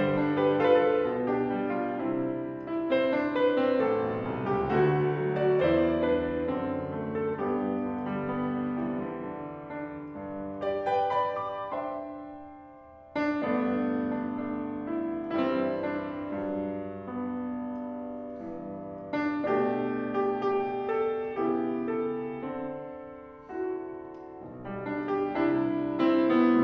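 Solo piano, a Petrof, playing a zamba, an Argentine folk dance, in phrases of notes and chords. The sound dies away shortly before 13 s, then a loud chord about 13 s in starts the next phrase.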